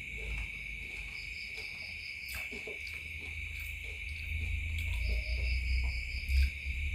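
Night insects, chiefly crickets, chirring steadily, with a second higher trill joining twice and dropping out again, over a low rumble.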